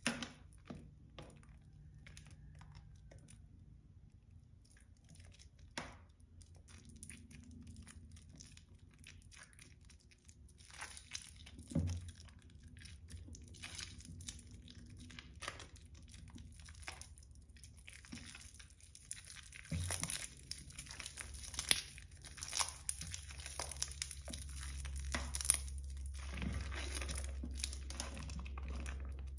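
Hands squeezing, tearing and crumbling soaked, mushy Palmolive bar soap in a tub of soapy water: a scatter of small wet crackles and tears, sparse at first and busier from about a third of the way in.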